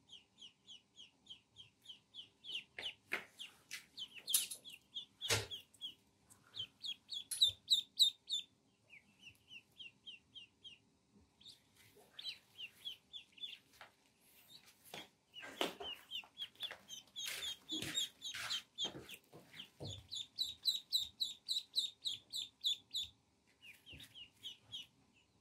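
Ducklings peeping: runs of quick, high chirps, about four or five a second, with short breaks between the runs. Short scuffling noises come in now and then, most of them past the middle.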